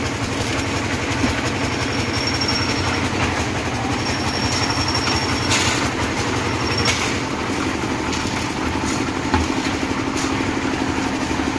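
Engine-driven concrete mixer running steadily, its drum churning gravel and cement with a continuous rattle. Several sharp knocks stand out from about the middle onwards.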